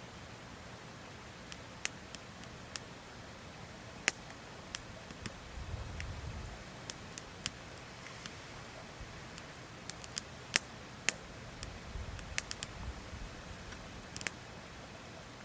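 Firewood burning in a campfire, crackling with scattered sharp pops and snaps at an irregular pace, a few much louder than the rest. Twice a short low rumble rises under the crackle.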